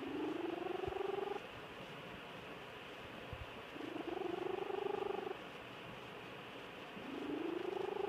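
Sleeping cat snoring, three drawn-out snores about three and a half seconds apart, each rising in pitch and then holding.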